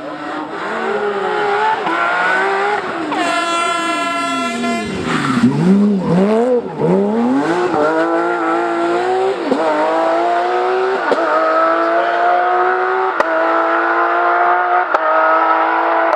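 Porsche racing car's engine at high revs. It holds one high note for a couple of seconds, falls away as it slows, then climbs again through several quick upshifts as it accelerates.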